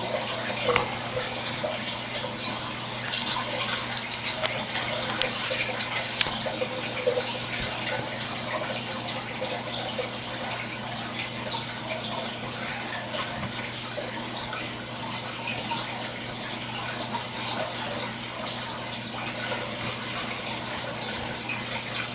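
Water splashing and trickling steadily in a fish tank, as from an aquarium filter's outflow, over a steady low hum.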